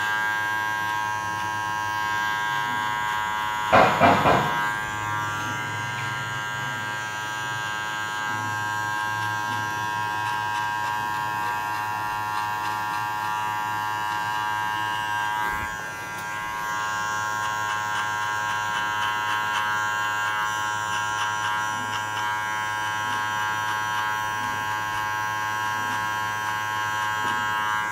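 Electric hair clippers buzzing steadily, fitted with a 1/2 guard and the blade lever open, as they fade hair on the sides. There is a brief louder sound about four seconds in and a short dip in the buzz around the middle.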